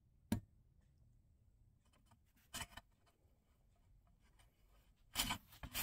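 Faint metal clicks as a bevel gear goes onto the keyed spindle shaft of a Millers Falls 207 bench drill, then near the end a dry metal-on-metal scraping as the shaft and gear are turned in the housing. It sounds a bit dry because the mechanism is not yet oiled.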